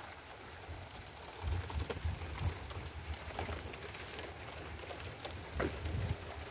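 Rain falling, with scattered sharp drop hits and bouts of low rumbling on the microphone about a second and a half in and again near the end.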